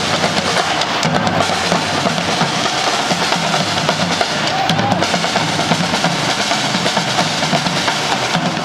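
Drum-led music: bass drum, snare and other percussion playing a busy, steady rhythm.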